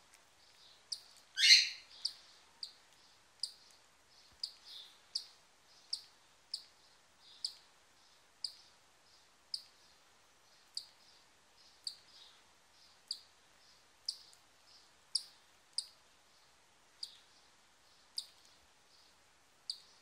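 Newly hatched cockatiel chick peeping: short, high peeps at about one a second, with one louder, longer chirp about one and a half seconds in.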